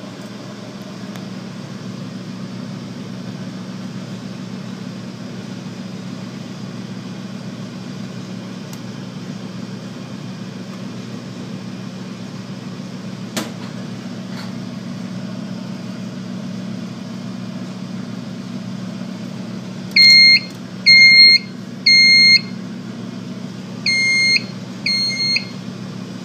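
Steady low hum. About 20 seconds in, a fire alarm sounder on an EST3 system goes into alarm with high-pitched half-second beeps in the temporal-three evacuation pattern: three beeps a second apart, a short pause, then two more.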